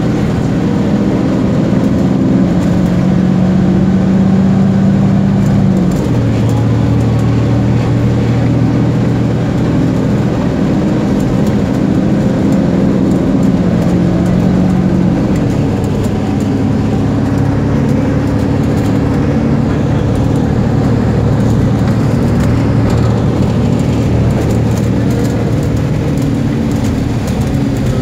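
Engine and road noise heard from inside a moving vehicle, most likely a bus: a steady engine hum over tyre noise, its pitch dropping suddenly about six seconds in and again around fifteen seconds in.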